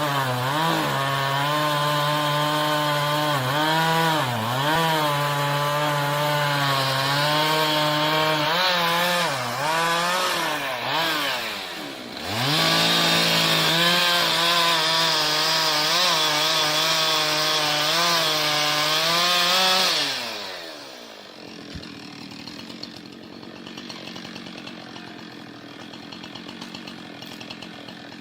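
Two-stroke chainsaw running at high revs while cutting wood, its pitch dipping and recovering as it bogs in the cut. About twelve seconds in it drops sharply and revs back up. About twenty seconds in it winds down and stops, leaving a much quieter steady noise.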